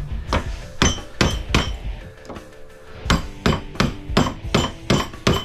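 A hammer striking the end of a screwdriver used as a punch, driving the steel core plates out of a light-fixture transformer held in a vise; the plates are stuck fast with shellac. About a dozen sharp blows come at roughly three a second, each with a short ring, with a pause of about a second and a half midway.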